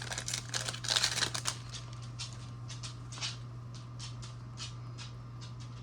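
Trading cards being handled and flicked through by hand: a dense rustle for the first second and a half, then separate soft card slides, about two a second. A steady low hum runs underneath.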